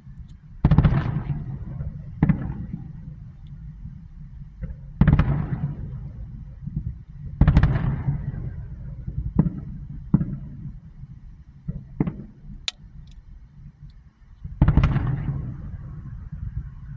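Aerial fireworks shells bursting one after another, about eight sharp bangs, each followed by a low rolling rumble. The biggest booms come about a second in, around five and seven and a half seconds in, and near the end.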